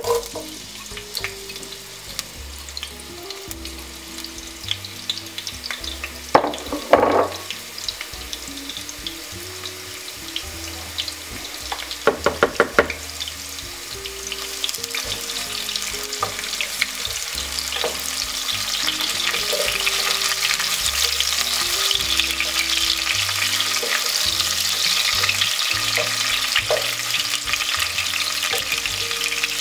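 Sliced red onions frying in hot vegetable oil in a pot, sizzling steadily while being stirred with a wooden spoon; the sizzle grows louder about halfway through. A couple of knocks come early on, and a quick run of taps about twelve seconds in.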